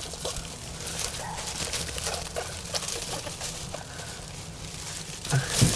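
Dry hay in a rabbit nest rustling and crackling in quick, irregular ticks as it is handled and parted close to the microphone, with a louder bump near the end.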